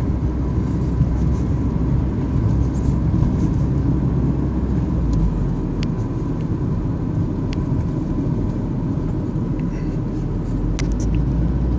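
Steady road and engine noise heard inside a moving car's cabin: a low, even rumble from tyres and engine at a steady speed, with a few faint clicks.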